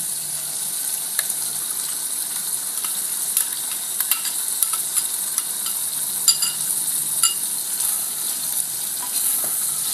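Mutton curry sizzling in a pan as a freshly added masala paste is stirred in, with scattered light taps and scrapes of the stirring utensil against the pan.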